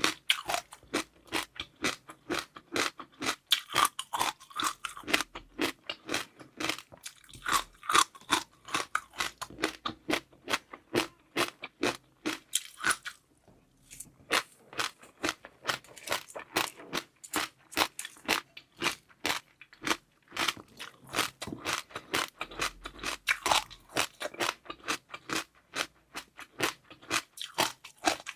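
Close-miked chewing of a jelly dessert with seaweed pearls: a dense run of crisp crunches, several a second, with a short pause about halfway through.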